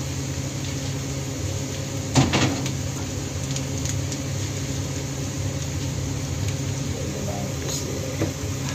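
Chopped garlic and ginger sizzling in hot oil in a wok: a steady frying hiss with a low hum underneath. A single sharp knock about two seconds in, and a smaller one near the end.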